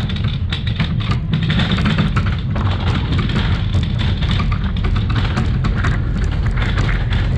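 A bobsled running down an ice track, heard from on board: a steady, loud low rumble from its steel runners on the ice, with a constant rapid rattle of clicks and knocks from the sled.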